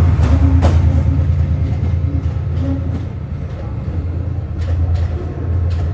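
Class 68 diesel locomotive's Caterpillar V16 engine running with a deep steady throb as a locomotive-hauled passenger train pulls away, with a few sharp clicks.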